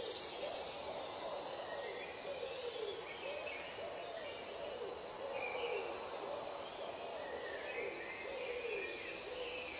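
Tropical forest ambience of calling birds: a low call that rises and falls in pitch, repeated every second or so, under scattered higher chirps, with a brief rapid high trill about half a second in.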